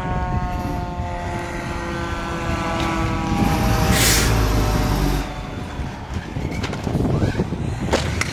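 Fire engine's diesel engine running as it rolls past, its pitch falling slowly as it slows, over a low rumble. About four seconds in, as it passes, a short loud hiss of air brakes.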